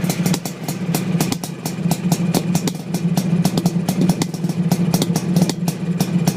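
Suzuki GT500's two-stroke twin engine running with a steady low note, broken by many sharp, irregularly spaced pops: the engine is misfiring.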